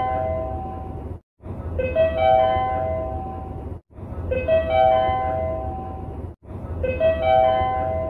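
Train service-information update chime: a four-note rising chime, looped about every two and a half seconds with a brief cut to silence between repeats, over a steady low hum.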